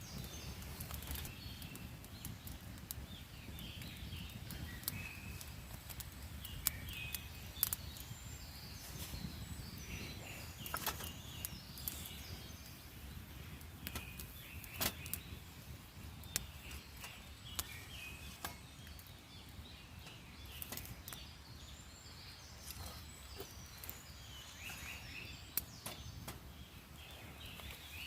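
Wild birds singing in short chirps over a steady low rumble, with a scattering of sharp clicks and snaps.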